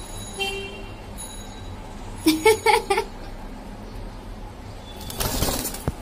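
Caged budgerigar giving a short burst of quick chirps about two seconds in, then a brief rustling noise near the end.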